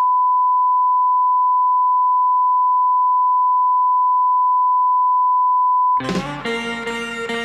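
A steady electronic beep, one unbroken pure tone like a broadcast test tone, cutting off about six seconds in as music starts.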